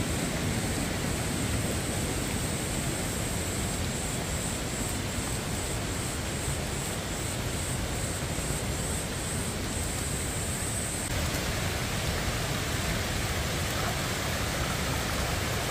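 Steady rushing noise of rain and running water, with a high pulsing buzz over it that stops about two-thirds of the way through.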